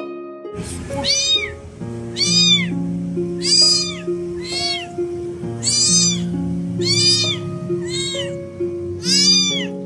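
A very young kitten crying in distress, short high-pitched meows that rise and fall, one about every second, as it is bathed in warm water and has maggots brushed off its fur with a toothbrush. Soft background music plays underneath.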